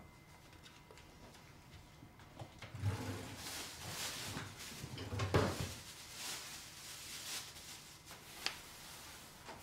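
A drawer sliding open and shut, with soft thuds about three and five seconds in, and a sharp click near the end.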